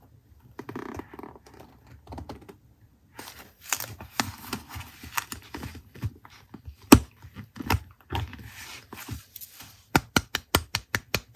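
Paper and craft materials being handled on a desk: soft rustling, then scattered sharp taps and clicks, ending in a quick run of about nine clicks.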